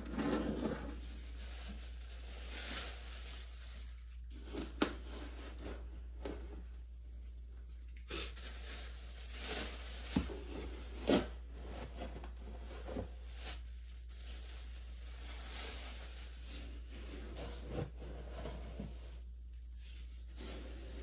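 Plastic litter scoop digging and sifting through granular cat litter, the granules rustling and pouring off it, with the thin plastic bag crinkling as clumps are tipped in. A few sharp knocks of the scoop stand out, the loudest about eleven seconds in.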